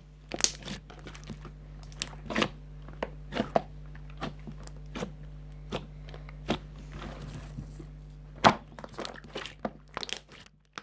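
Slime being squeezed and poked by hand, making irregular crisp crackles and pops, with one louder pop about eight and a half seconds in, over a faint steady hum.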